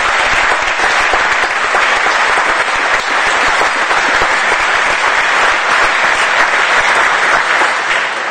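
A large audience applauding steadily, beginning to fade near the end.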